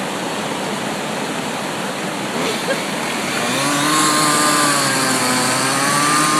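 Rushing river water, then a chainsaw engine comes in a little past halfway and runs at a steady speed.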